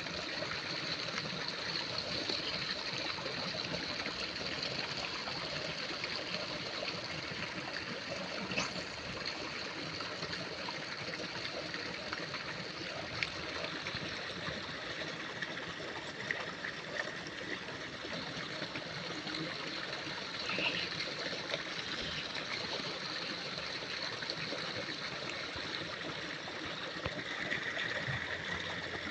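Steady running water, like a stream trickling and rushing, with a few faint clicks.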